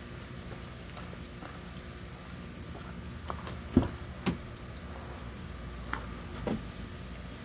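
Light rain pattering steadily. A little under four seconds in, the driver's door of a 2004 Chevrolet 3500 pickup clunks as it is unlatched and swung open, the loudest sound, followed by a few softer knocks.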